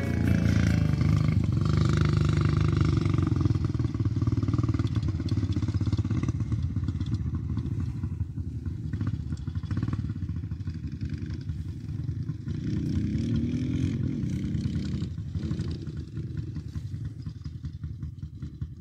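Dirt bike engines running steadily. One revs up and eases off about two-thirds of the way through.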